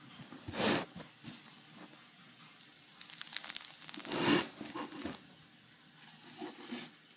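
A heated knife blade pressing and cutting through a toasted muffin, with the crisp crust crunching and crackling. There is a short crunch about half a second in, then a denser run of crackling from about three to five seconds that is strongest just past four seconds, and a few faint crackles near the end.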